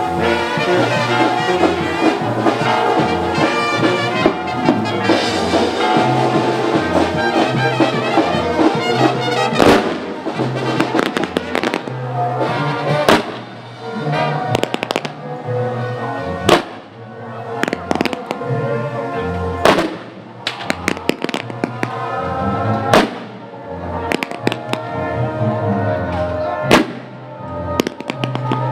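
Band music with a repeating bass line and brass; from about ten seconds in, firecrackers go off over it at irregular intervals, a few of them loud bangs.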